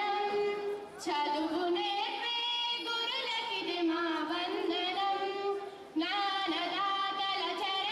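A small group of girls singing together into a microphone in long, held phrases, with short breaks for breath about a second in and again near six seconds.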